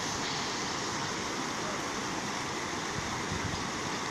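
Steady rush of floodwater in a swollen river flowing past the bank.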